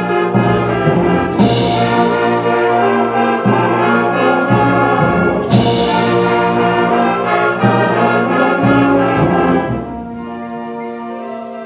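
A school symphonic band playing full, brass-heavy sustained chords, with trombones, tuba and woodwinds together. Two crashes ring out about one and a half and five and a half seconds in, and the band drops to a softer held chord about ten seconds in.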